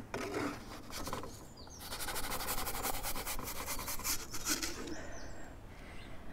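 A wooden pizza peel scraping and rasping across the baking stone of an Ooni Koda 12 gas pizza oven as a pizza is launched, strongest for about two seconds in the middle. Birds chirp briefly.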